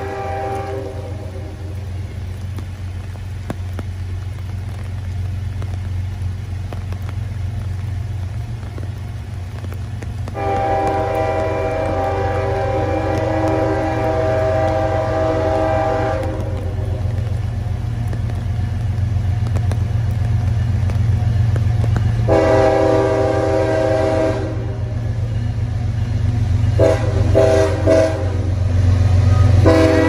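CSX freight train's lead diesel locomotive sounding its air horn of several notes for a grade crossing: a long blast, another long blast, a short one, and a final long blast starting near the end. Under it the low, steady rumble of the locomotives' diesel engines grows louder as the train approaches.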